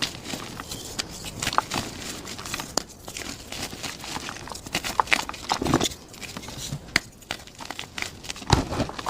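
Plain gym chalk being crushed, crunching and crumbling in a dense, irregular run of crackles, with a couple of heavier crunches, the loudest near the end.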